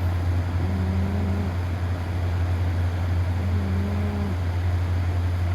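Sleeping cat snoring: two short, pitched snores about three seconds apart, each under a second long, over a steady low hum.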